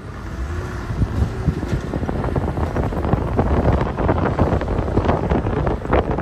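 Wind buffeting the microphone on a moving vehicle, over the rumble of driving on a dirt road, with many irregular thumps that grow louder through the stretch.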